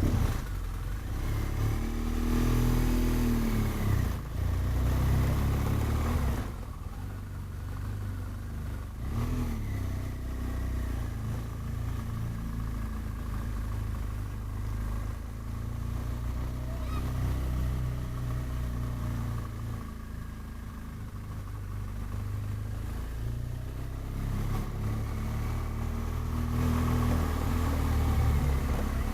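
BMW R1200GS boxer-twin motorcycle engine running at low speed, its pitch rising with the throttle a couple of seconds in, again around nine seconds, and near the end.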